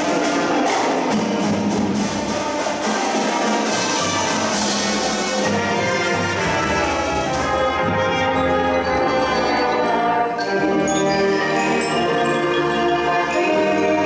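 Marching band playing: brass chords with drum and cymbal hits through the first half, then from about halfway held brass chords with mallet percussion ringing over them.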